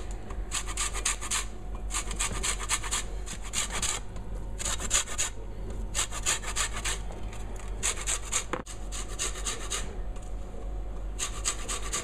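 Lemon being zested on a hand grater: quick rasping strokes of the peel across the grater, in runs of about a second with short pauses between.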